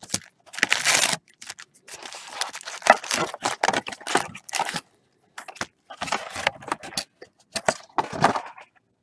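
Trading card packs in crinkly foil wrappers and their cardboard hobby box being handled: the packs are pulled out and stacked, giving irregular bursts of crinkling and rustling with short gaps between.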